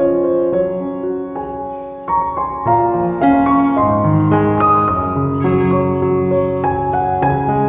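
Background piano music: a melody of struck notes over held chords.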